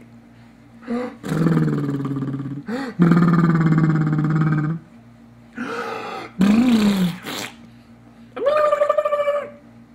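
A baby making loud, low, gargly growling noises: two long drawn-out growls in the first half and a short one that rises and falls in pitch around seven seconds in. Near the end comes a higher-pitched squeal.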